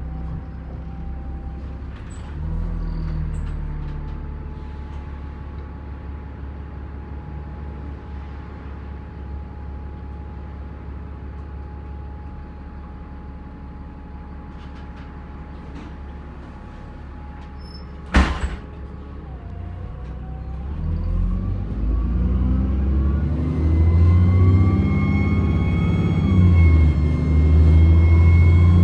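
Diesel engine of an Alexander Dennis Enviro400 Trident double-decker bus idling steadily, with one sharp crack about two-thirds of the way in. Near the end the engine revs up under load and a high turbo whine rises in pitch and holds.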